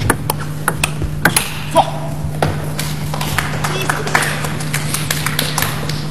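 Table tennis rally: the ball clicking sharply off the bats and the table, irregularly spaced strokes, over a steady low hum.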